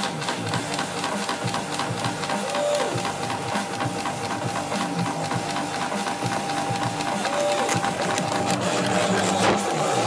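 Cyclone PCB Factory CNC mill cutting a board: a steady whine from the spindle over the bit's rapid grinding, with the stepper motors' buzz rising and falling briefly in pitch a few times as the axes move.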